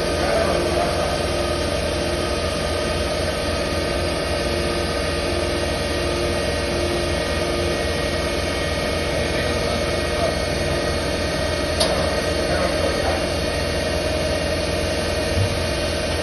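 CNC machine running steadily, a continuous machine hum with a layer of steady whining tones, and one sharp click about twelve seconds in.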